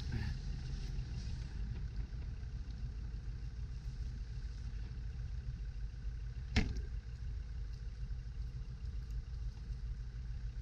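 Range Rover Classic's engine running steadily, a low rumble, with one sharp knock about six and a half seconds in.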